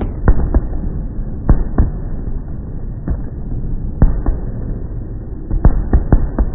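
Aerial fireworks bursting overhead: about a dozen sharp bangs at irregular intervals, several in quick pairs, over a steady low rumble. The sound is dull and muffled, with no high end.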